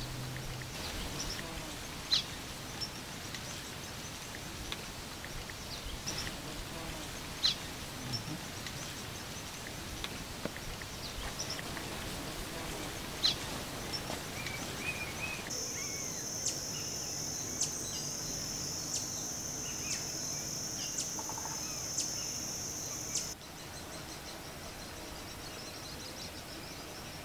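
Outdoor ambience with scattered short, high bird chirps over a faint hiss. About halfway through, a steady high-pitched insect drone sets in, lasts about eight seconds and then cuts off abruptly.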